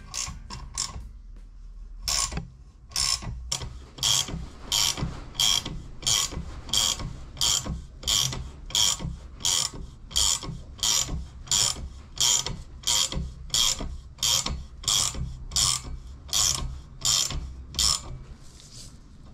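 Ratchet wrench clicking in short, evenly spaced strokes, about one and a half a second, winding the nut down the threaded rod of a homemade valve spring compressor to compress a valve spring.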